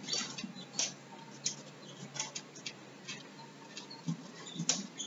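A cloth wiping a whiteboard in quick strokes: faint, irregular rubs and light scuffs, with a slightly louder scuff near the end.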